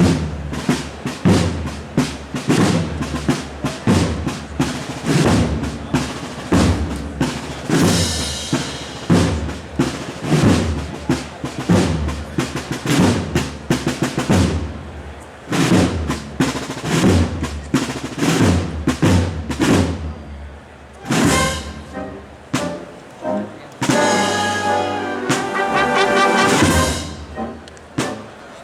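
Spanish wind band playing: sharp percussive beats repeat at a steady pace for most of the passage, then full brass chords come in and swell about three quarters of the way through.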